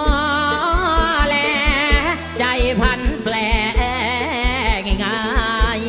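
Mor lam singing: a voice holds long, wavering, ornamented notes over the band, with a steady bass drum beat.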